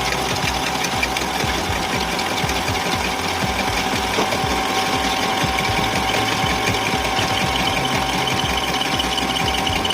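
Lathe turning a workpiece under a cutting tool: a steady machining noise with a constant ringing tone running through it.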